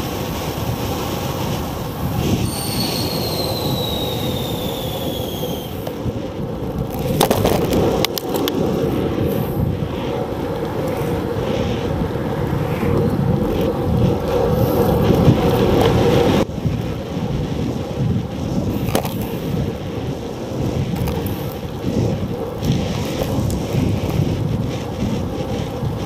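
Bicycle riding on pavement, picked up by a small camera zip-tied to the handlebars: a steady rumble and rattle of tyres and road vibration mixed with wind on the microphone. A few seconds in, a high whine falls in pitch for about three seconds, and a few sharp clicks come later.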